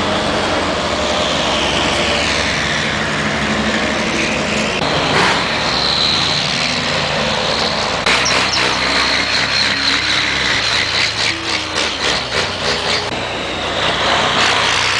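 Racing trucks' turbo-diesel engines running as the trucks roll slowly past one after another. A high, steady whine comes in about six seconds in, and from about eight seconds the engine sound pulses unevenly for several seconds.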